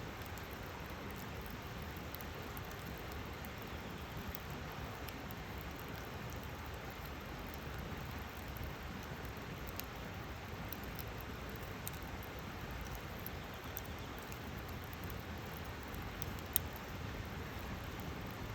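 Campfire burning, with a steady hiss and scattered small crackles, and one louder pop near the end.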